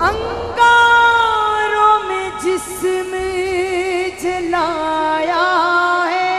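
A woman singing through a microphone, holding long drawn-out notes that break into quick wavering ornaments in the second half.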